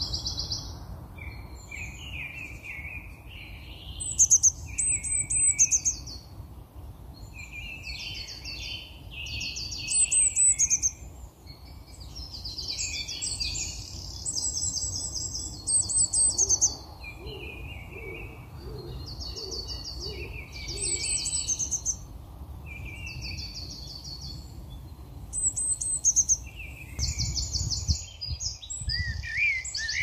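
Garden songbirds singing: high, bright trilled phrases come back about every five seconds, with lower twittering notes between them, over a faint low background rumble.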